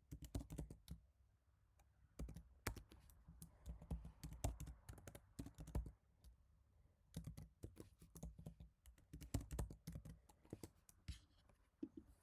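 Typing on an HHKB Type-S keyboard, its silenced Topre keys giving soft, quick clicks in three bursts separated by short pauses.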